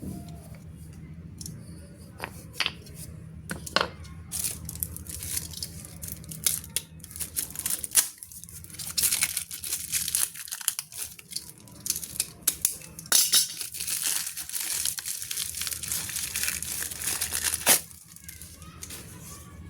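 Packaging being opened by hand: scattered clicks and rustles, then a long stretch of tearing and crinkling from about halfway through that stops abruptly with a sharp snap near the end.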